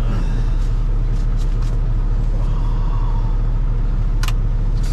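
Heavy diesel truck engine running with a steady low rumble, and a single sharp click about four seconds in.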